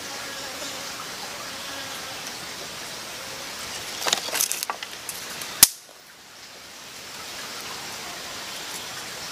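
Steady rushing of a nearby forest stream. About four seconds in, a short patch of crackling and clicks as twigs are fed into a small campfire, then one sharp snap.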